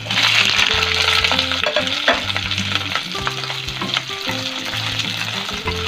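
Chopped onion and capsicum dropped into very hot oil in a non-stick wok: a sudden burst of sizzling as they land, then steady frying with the clicks and scrapes of a wooden spatula stirring them.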